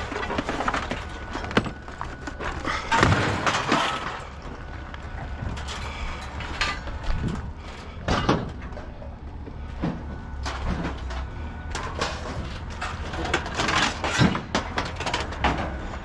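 Irregular knocks, clanks and scrapes of scrap metal parts being handled and pulled apart by hand, over a steady low hum.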